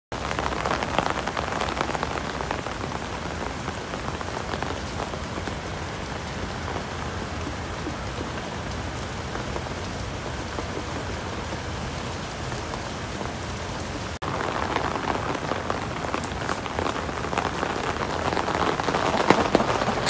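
Steady rain falling, with many close drops pattering. It breaks off for an instant about two-thirds of the way through, then comes back a little louder.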